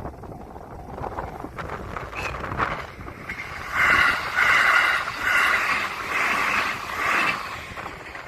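Train passing over the level crossing: a loud, rhythmic run of wheel-on-rail clatter in the middle for about four seconds, then fading. Wind rumbles on the microphone throughout.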